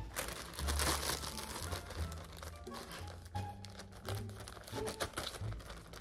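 Plastic zip-top bag crinkling as it is handled and pressed shut, over background music with a deep repeating bass.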